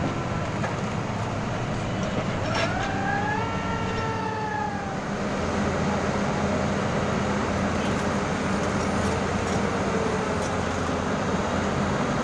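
Diesel engine of a rotary bored-pile drilling rig running steadily. About two seconds in, a pitched whine rises and then falls over roughly two seconds.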